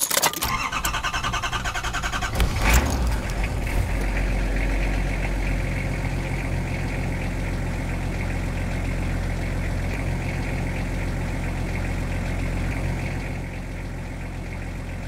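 Car engine cranked by the starter in a fast rhythmic chug, catching with a short rev after about two and a half seconds, then settling into a steady idle that gets a little quieter near the end.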